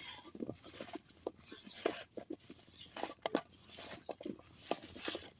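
A bare hand mixing and pressing peeled raw lychees with spices and oil in a stainless steel bowl: irregular soft wet squishes and clicks of the fruit against the steel.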